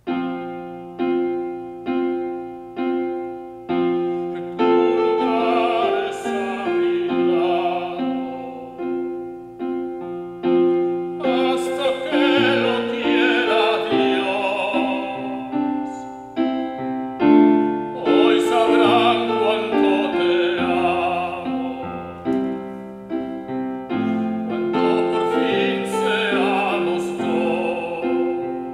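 Male tenor singing in an operatic style with digital piano accompaniment. The piano opens alone with four repeated chords, one a second, and the voice comes in with vibrato about four and a half seconds in.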